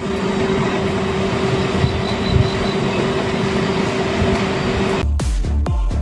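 A steady rumbling noise with a constant hum, then electronic dance music with a thumping beat starts about five seconds in.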